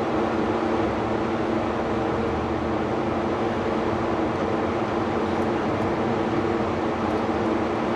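Steady mechanical hum, even in level and pitch, with no sharp knocks.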